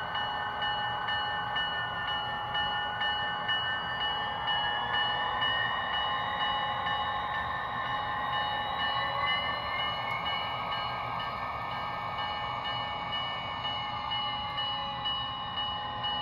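Diesel engine sound from the TCS WOW sound decoder in an HO-scale Bachmann GP35, played through the model's small speaker as the locomotive runs in reverse along the track. The engine pitch climbs over the first ten seconds or so and then eases back down, over a steady high tone.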